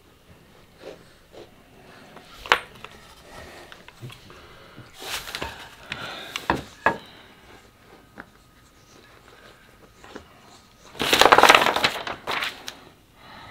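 Handling noises of flat-pack table assembly: scattered clicks and knocks of the pine boards and hardware, with one sharp knock about two and a half seconds in, and crinkling of the plastic bag of screws. Near the end comes the loudest sound, a rustle of the paper instruction sheet being turned.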